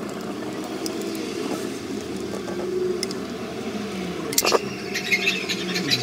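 Silicone sealant being laid with a caulking gun around a stone patch in a fridge's plastic liner, with a couple of sharp clicks about four and a half seconds in. Light scraping follows near the end as a spoon smooths the wet silicone, over a steady low hum.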